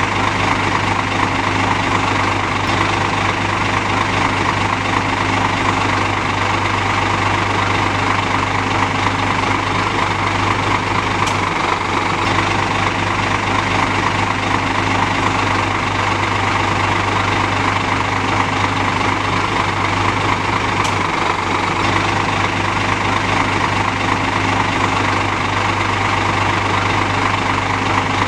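Scania K410 bus engine and running noise heard from inside the passenger cabin: a steady, unchanging low drone with no revving. Two faint ticks come through, about a third of the way in and again about three quarters of the way in.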